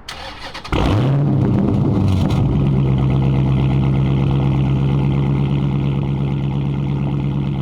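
Dodge Challenger T/A 392's 6.4-litre HEMI V8 with aftermarket exhaust being started: the starter cranks briefly, the engine catches with a loud flare about a second in, then settles into a steady, deep idle.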